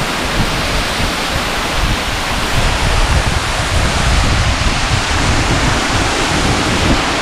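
Monsoon waterfall (Kataldhar) rushing: a loud, steady wash of falling water. A heavier low rumble joins it from about three seconds in.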